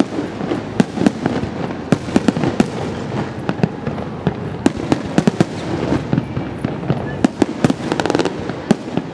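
Aerial fireworks going off in a dense, irregular barrage of sharp bangs and crackling bursts, several a second, over a continuous rumble.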